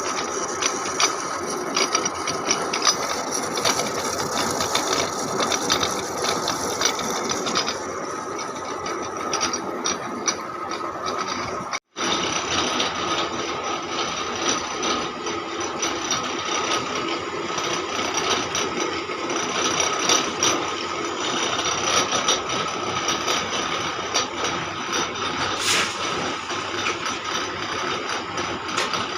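Heavy gear-driven machinery running steadily, with a constant whine and fine rapid clicking. It drops out completely for a split second about twelve seconds in.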